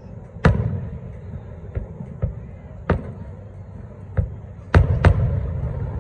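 Aerial firework shells bursting: a string of about seven sharp booms of uneven loudness. The biggest comes about half a second in, with a close pair near the end, and each is followed by a lingering echo.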